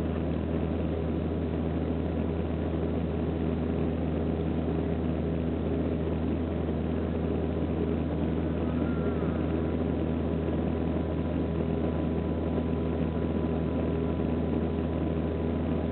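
Steady drone of a turboprop airliner's engines and propellers heard inside the cabin: a strong low hum with several steady tones above it and a thin high whine, unchanging throughout.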